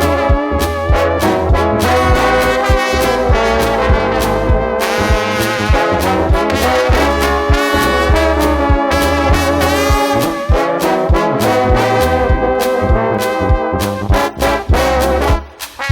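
Brass band playing a lively praise number with trombones prominent, over drums keeping a steady beat and a bass line. The band drops out briefly near the end, then comes back in.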